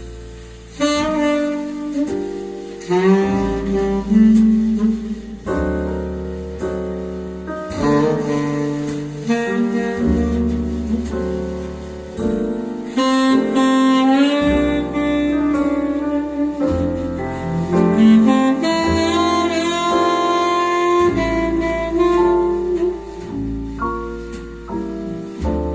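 Saxophone-led jazz with piano and a deep bass line, played back through an Altec 816 speaker cabinet with a 511B horn.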